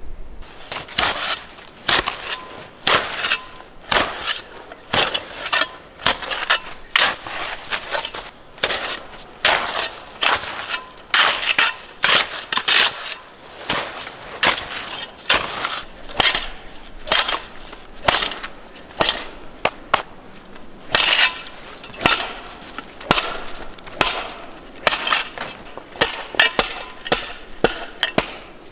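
Snow shovel chopping and scraping into packed snow, an irregular run of crunching strikes about one or two a second.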